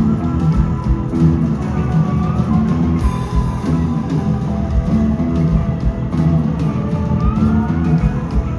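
Rock band playing live: a heavy, repeating low riff over a steady drum beat. A high sliding tone bends up and back down twice.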